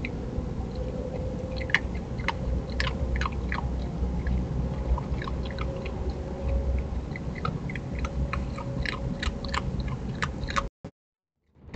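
Opossum chewing dry food from a dish: irregular crunchy clicks, several a second, over a low rumbling background. The sound cuts out for about a second near the end.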